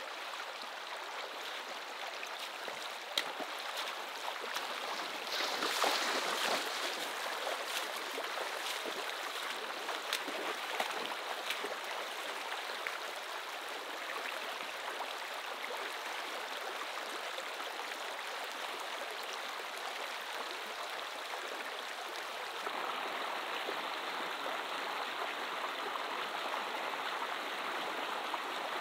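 A shallow, rocky river runs over stones with a steady rushing babble. Scattered sharp small splashes sit on it in the first half.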